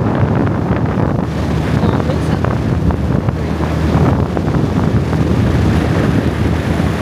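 Strong wind buffeting the microphone, a loud, steady rumble.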